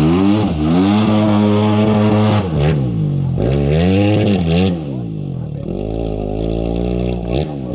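Off-road dirt bike engine revving hard, its pitch climbing and dropping again and again as the bike is ridden through mud and water. It gets somewhat quieter from about five seconds in.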